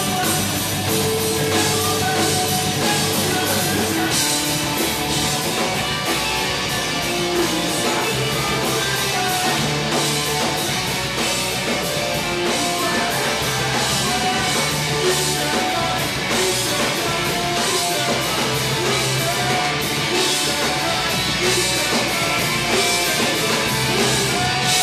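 Punk rock band playing live and loud: electric guitars, bass guitar and a drum kit driving a steady beat.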